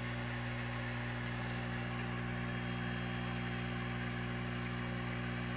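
A steady low electrical hum made of several even tones stacked one above another, holding the same pitch and level.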